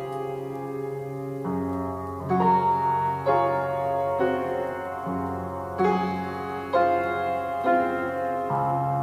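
Slow piano music: single notes struck about once a second over held low chords that change every few seconds.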